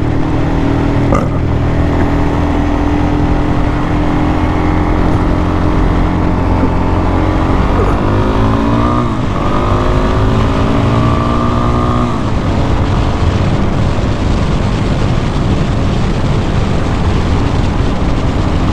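Dual-sport dirt bike's single-cylinder engine running at riding speed on a dirt road; about eight seconds in the engine note rises, dips once, climbs again, then drops back about twelve seconds in and settles.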